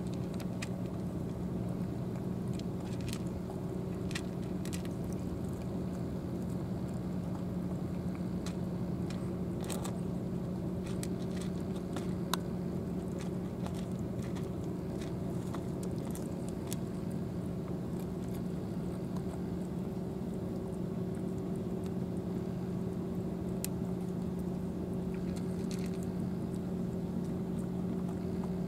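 Cats chewing and crunching dry cat food, a scatter of sharp irregular crunches, over a steady low hum.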